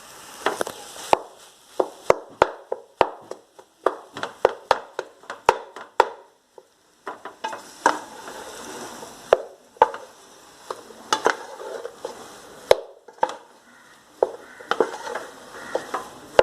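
A cooking utensil stirring and scraping mashed potato into a beef masala in a pan, with many sharp knocks of the utensil against the pan and a little sizzle.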